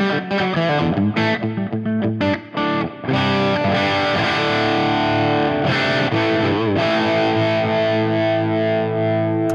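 Electric guitar with humbuckers (a Tokai Les Paul-style) played through the Friedman Small Box amp model of a Fractal FM3 with crunchy distortion. Short strummed chord stabs for about three seconds, then one chord left to ring out until it stops at the end.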